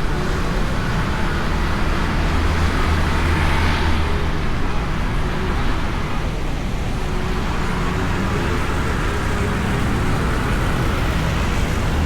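Motorcycle riding through traffic, heard from a microphone inside the rider's helmet: a steady low engine drone under continuous wind and road rush, with a brief swell of hiss about four seconds in.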